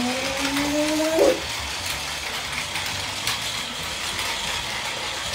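Battery-powered Takara Tomy Plarail Panda Kuroshio toy train running on plastic track, its small motor and gearbox whirring with light clicking. A drawn-out rising tone sounds over about the first second and then breaks off.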